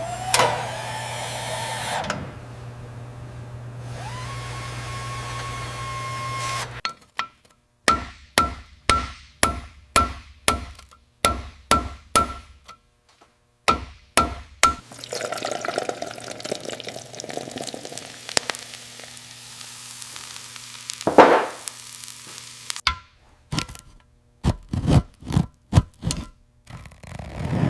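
Workshop tool sound effects. A low hum and a rising tone give way to a run of evenly spaced knocks, about two a second, like hammer blows. After them comes a stretch of hiss, one heavy thunk, and then more knocks.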